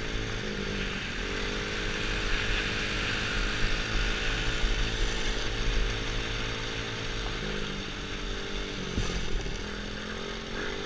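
Small 110cc quad's four-stroke single-cylinder engine running steadily under way, its pitch stepping slightly up or down a few times as the throttle changes. A steady hiss of wind and tyres on gravel runs under it.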